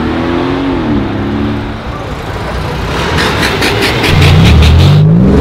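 Lime-green Mercedes G-Class 4x4² V8 accelerating away, its revs climbing and then easing off about a second and a half in. Near the end another sports car's engine revs hard and loud with rising pitch, briefly breaking off as it shifts, and a quick run of clicks, about six a second, sounds just before it.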